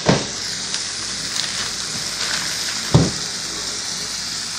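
Angus burger patties sizzling steadily in a skillet, with two dull knocks, one at the start and one about three seconds in.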